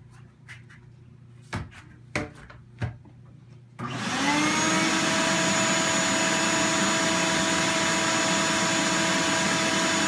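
Three knocks, then the Ridgid 12-gallon wet/dry vacuum's motor starts about four seconds in, its whine rising quickly to full speed and then running steadily.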